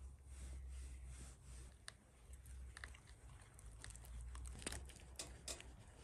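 Wooden stick stirring thick Novol Uni polyester body filler in its metal tin: faint sticky squelching with scattered light clicks.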